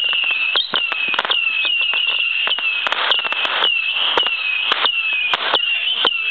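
Hand-held firework spraying sparks: a high whistle that drops in pitch and starts over about twice a second, over a run of sharp cracks and pops.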